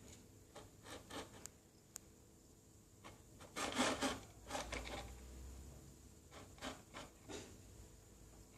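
Faint, scattered scrapes and rustles of a kitten pawing dry cat biscuits around on the floor, with a denser run of scraping about three and a half seconds in.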